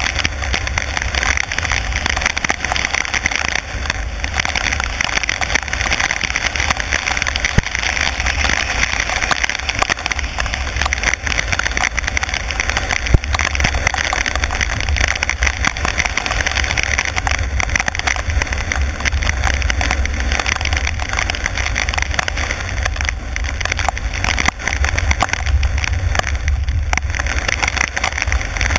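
Car driving on a rain-soaked road in heavy rain: a steady hiss of tyres and rain over a low rumble, with scattered ticks of raindrops striking.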